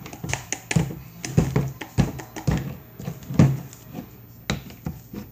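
Thick, dough-like homemade slime being mixed, with irregular taps and soft thuds.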